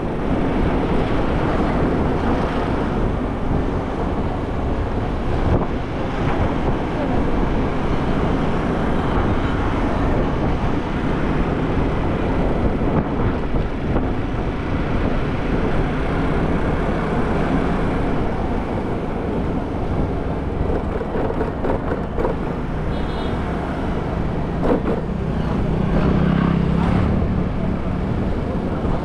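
Riding a scooter along a street: steady engine, road and traffic noise, with a louder low drone for a couple of seconds near the end.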